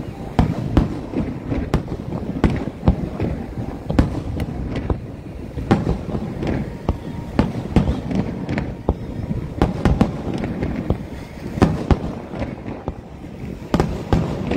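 Aerial fireworks display: shells bursting in quick, irregular succession, with many sharp bangs over a continuous low rumble.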